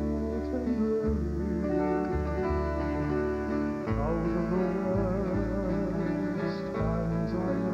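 Live Hawaiian music from an acoustic string band, guitars over a walking bass line, with a voice singing with vibrato coming in about four seconds in.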